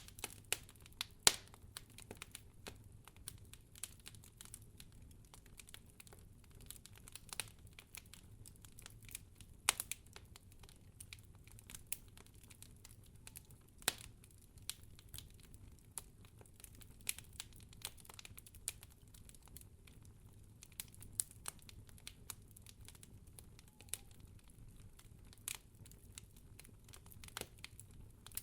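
Fireplace fire crackling: irregular sharp pops and snaps, a few a second at most, over a faint low steady background.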